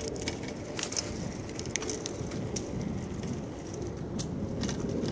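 Bicycle riding noise: a steady low rumble of wind and rolling tyres on the microphone, with scattered sharp clicks and rattles.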